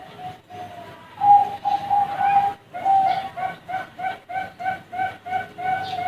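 Young Bangkok-line zebra dove (perkutut) cooing: a few drawn-out notes, then a quick even run of short coos, about three a second.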